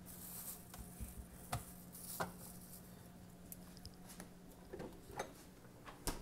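Faint kitchen handling: scattered light clicks and knocks of utensils against a pan and dishes, with a brief hiss near the start and a steady low hum that stops about five seconds in.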